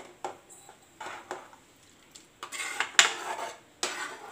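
A perforated steel ladle scraping and clinking against a metal kadai as it stirs a thin gravy, in a string of irregular strokes that come thickest in the second half.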